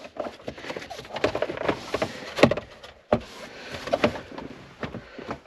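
Hummer H3's plastic center console trim being pushed and worked into place by hand: plastic scraping and rubbing against plastic, with repeated clicks and knocks, a sharper knock near the middle.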